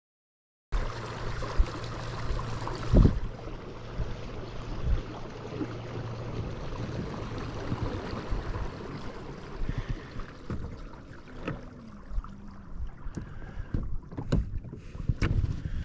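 Fishing kayak under way on calm water, starting a moment in after silence: water noise along the hull with a steady low hum that fades after several seconds. There is a thump early on and a few sharp knocks near the end.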